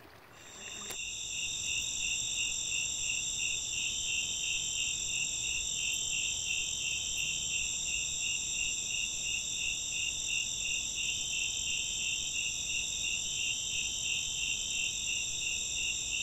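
Chorus of insects such as crickets: a steady high-pitched trill, with a regular chirp about three times a second under it. It comes in abruptly about a second in.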